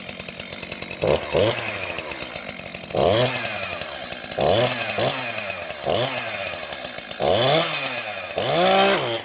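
Chainsaw engine running just after starting: a fast ticking idle, then revved up and let back down about seven times in quick succession.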